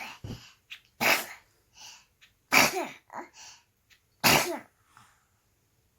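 A baby sneezing three times, about a second and a half apart, the later two trailing off in a falling pitch.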